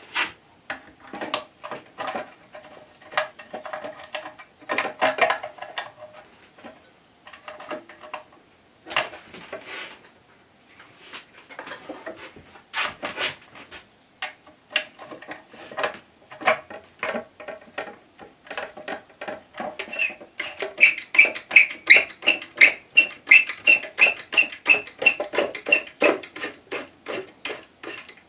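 Metal clicks and scrapes as the cover is fitted back onto a DML305 lathe headstock and its screws are turned in with a hand tool. In the last third comes a fast, even run of sharp metallic clicks, about four a second.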